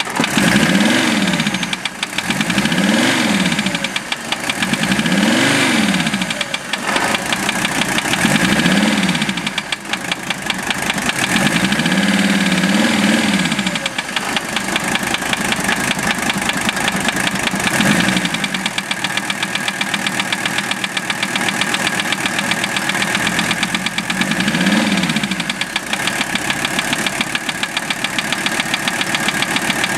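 Mercedes OM617 five-cylinder diesel running with a steady knock that keeps time with engine speed; valve adjustment and cracking each injector did not change it, and the owner suspects a piston, wrist pin or connecting rod. In the first half the engine sound swells and falls in pitch about every two seconds, then settles.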